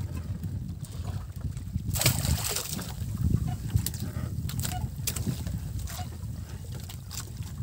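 Wind rumbling on the microphone and water sloshing against a small boat's hull, with scattered small knocks and clicks of handling. There is a brief louder rush about two seconds in.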